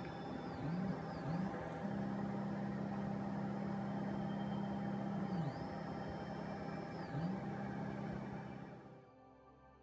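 Stepper motors driving a CNC router's axes, whining in pitch with each move. The tone rises as a move speeds up, holds steady while it travels and falls as it slows: several quick short moves at first, then two long steady runs. The sound fades away near the end.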